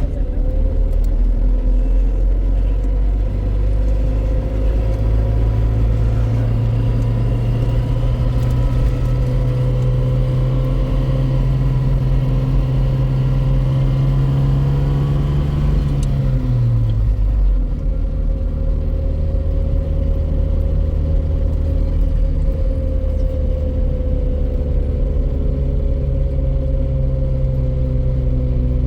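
A motor vehicle's engine running steadily, with a low hum and overtones. About two-thirds of the way through, the engine note drops in pitch, as when revs fall, then holds steady again.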